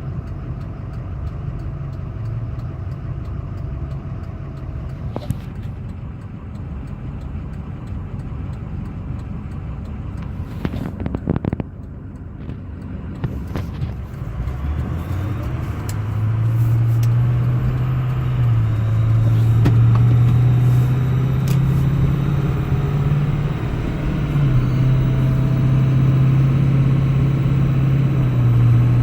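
Ford 6.0 Power Stroke V8 turbodiesel in a 2005 F-350 running, with a thin steady whine over the engine note that the owner cannot identify. About halfway through the engine speeds up and holds higher, its low drone rising and stepping up and down. A few sharp clicks come near the middle.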